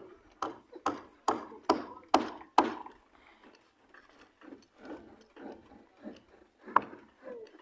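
A series of sharp knocks, about two a second: six loud ones in the first three seconds, then softer ones at the same pace with one more loud knock near the end.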